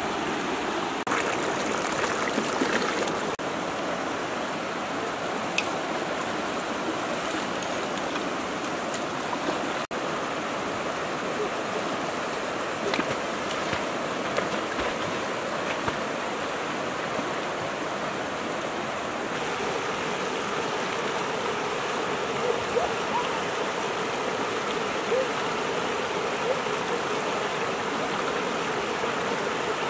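Shallow rocky river rushing steadily over boulders through small rapids, with a few short, sharp sounds here and there.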